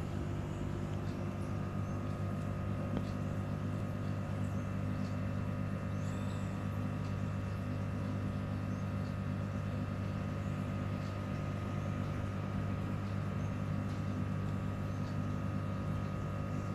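Steady electric hum of aquarium equipment, an air pump or filter motor, with faint small ticks from bubbles in the tank.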